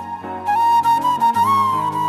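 Background music: a high held melody line with small ornamental pitch turns over sustained low notes, the low notes shifting about a second and a half in.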